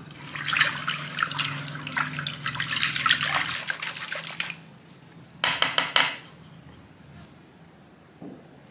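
Metal wire whisk beating a thin sugar, water and oil mixture in a wooden bowl to dissolve the sugar: a fast, splashy run of whisk strokes with the wires clicking against the bowl for about four and a half seconds, then a second short burst of strokes about five and a half seconds in.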